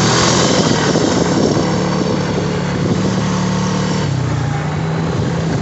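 Honda ATV engine running steadily under way, its pitch dropping a step about four seconds in, with a constant rushing noise over it.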